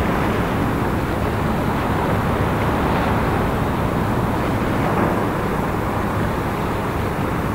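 Steady low drone of a small coastal tanker's engine as the ship passes close by, with a constant hiss over it.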